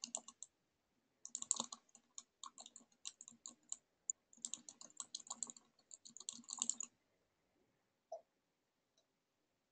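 Typing on a computer keyboard: faint, quick runs of key clicks in three bursts, stopping about seven seconds in.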